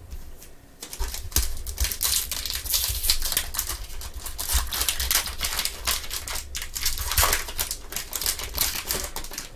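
Foil trading-card pack wrapper crinkling and crackling as gloved hands tear it open; the dense run of crackles starts about a second in.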